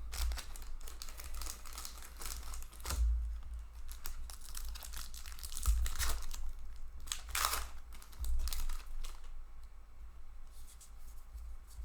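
Foil wrapper of a Magic: The Gathering booster pack torn open and crinkled by hand: irregular crackling rustles with louder bursts near the start and around the middle, and a few dull bumps from handling.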